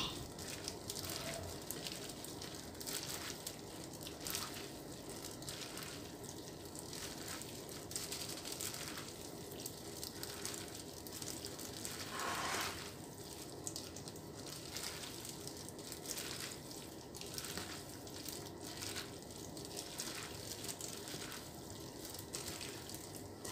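Gloved hand tossing and squeezing sauced glass noodles and vegetables on a plate: faint, repeated wet squishing with plastic-glove rustle, and one brief louder swish about halfway through.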